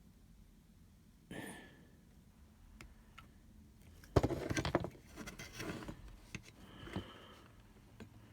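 Handling noise from small parts being worked by hand: a short scrape about a second in, then a loud cluster of knocks and rustles about four seconds in, followed by scattered lighter clicks.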